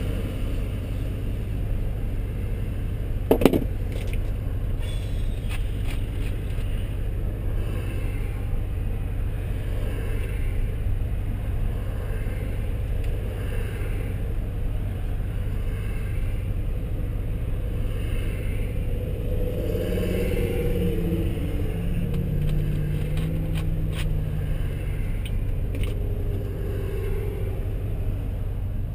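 The 2002 Mustang GT's 4.6-litre V8, fitted with long-tube headers and a straight-piped exhaust, idling steadily as a low rumble heard from inside the cabin. A single sharp click sounds about three seconds in.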